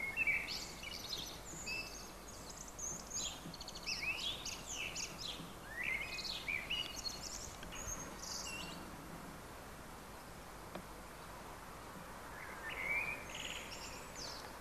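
Small birds chirping and singing in quick, high twittering phrases over a faint steady background hush, with a lull a little past the middle before another burst of song near the end.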